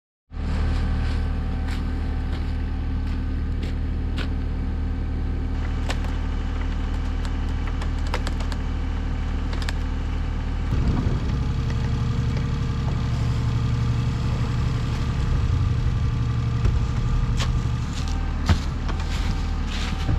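Cat 303 CR mini excavator's diesel engine running steadily, with scattered clanks. About eleven seconds in the engine note changes and gets heavier.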